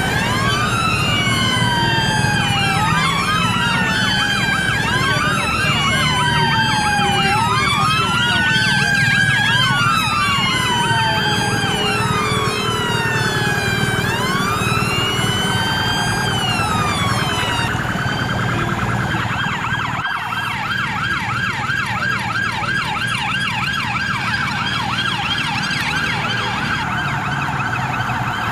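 Several police sirens sounding at once, their slow wails rising and falling out of step with each other, changing about two-thirds of the way in to a fast yelp. Vehicle engines and traffic run underneath.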